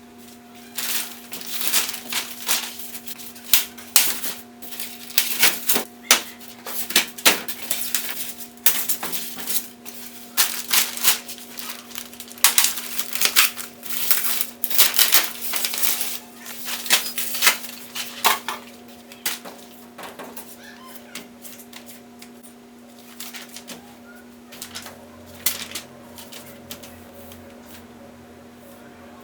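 Packaging being handled during an unboxing: irregular crinkles, taps and clicks, busy for most of the time and thinning out near the end, over a steady low hum.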